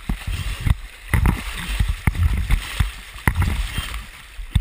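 River rapids sloshing and splashing over a camera riding at the water surface. Waves slap and gurgle against it in irregular heavy thumps over a steady rush of whitewater.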